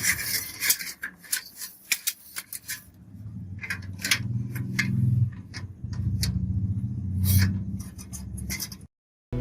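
Sharp clicks and knocks of hardware being handled and fitted while a motherboard goes into a PC cabinet. From about three seconds in a low hum runs under scattered clicks, then the sound cuts off just before the end.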